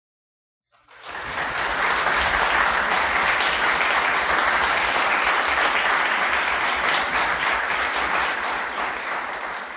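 Audience applauding, a dense steady clapping that starts suddenly about a second in and begins to fade near the end.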